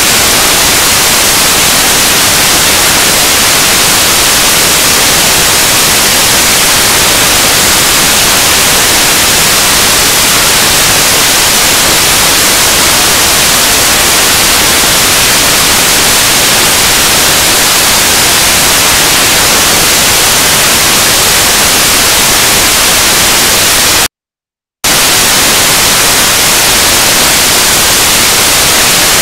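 Loud, steady static hiss filling the sound track, strongest in the high frequencies, with no voices audible through it. It cuts out to total silence for about half a second near the end, then resumes. This is an audio fault: the speech track has been replaced by noise.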